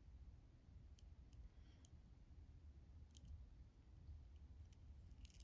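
Faint, scattered clicks of sterling silver Pandora charms and beads knocking against each other as the charm bracelet is turned in the fingers, over a low room hum.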